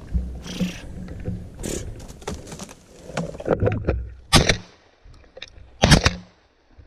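Handling and movement noise on a gun-mounted camera as the shotgun swings: a low rumble with scattered rustles and sharp knocks, the loudest about four and a half and six seconds in.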